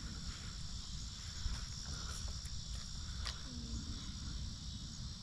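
Steady high-pitched chorus of insects such as crickets, with a low rumble underneath and a single short click a little over three seconds in.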